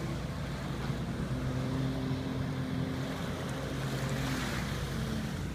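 Jet ski engine running out on the water, a steady drone whose pitch shifts a little as the rider moves. Surf and wind on the microphone are heard under it, with a noisy swell about four seconds in.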